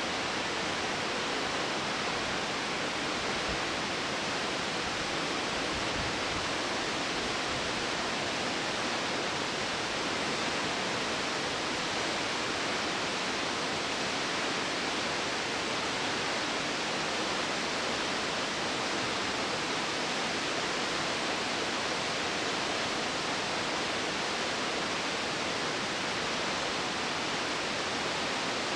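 Taughannock Falls, a tall single-drop waterfall, pouring down into its gorge: a steady, even rush of falling water.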